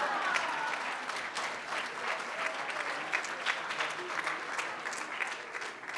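Audience applause: many hands clapping steadily and densely, a standing ovation for an award recipient.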